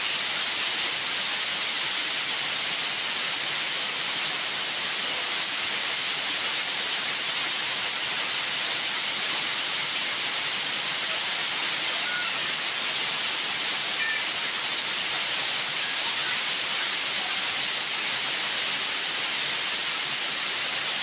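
Steady rushing hiss of water at an even level throughout.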